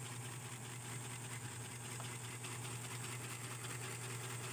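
Steady low hum with faint background hiss, unchanging throughout.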